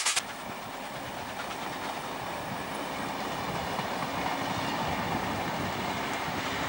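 Rapid exhaust beats of steam locomotive 3801 cut off abruptly at the start. Then the locomotive and its passenger carriages give a steady, distant rumble that slowly grows louder.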